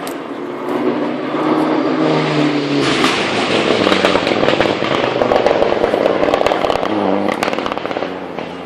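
Rally car engine accelerating hard, its pitch climbing over the first few seconds. It then passes close by with a loud rush and a run of sharp crackles, and the sound eases off near the end.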